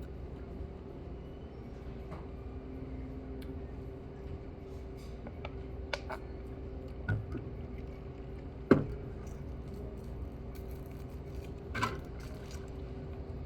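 A few sharp clicks and clinks of utensils against a bowl while eating, the loudest just before nine seconds in, over a steady low hum.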